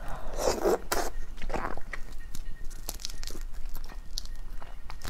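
Close-miked mouth sounds of eating a cooked shrimp: sucking and slurping at the shell, two longer slurps in the first two seconds, then small wet smacks and clicks.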